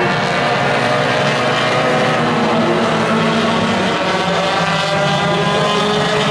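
Tuner-class compact race cars' engines running hard at speed around a short oval track, several at once, their pitches drifting up and down as they go by.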